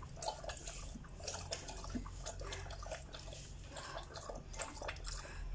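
Bull terrier lapping water from a plastic container: a quick, irregular run of wet laps.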